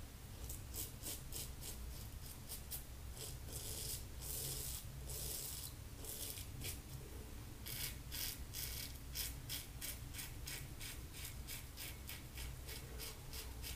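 Fine Accoutrements Marvel double-edge safety razor scraping through lathered stubble in a quick run of short strokes, with a few longer ones, faint.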